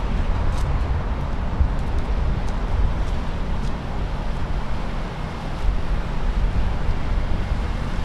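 Wind buffeting the microphone over a steady rumble of engine noise and water as a small fishing boat motors past, its bow wave and wake splashing.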